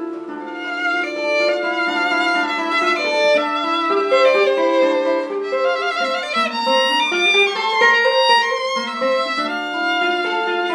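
Violin and classical guitar duet: the violin plays a melody with vibrato over plucked guitar accompaniment.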